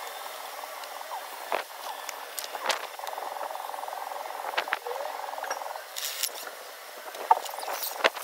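Yellow-and-black DeWalt cordless drill-driver running for nearly three seconds, starting about three seconds in, as it drives a screw into a steel lock keep on the door frame. Sharp clicks and knocks of the tool and screw being handled come before and after it, the loudest near the end.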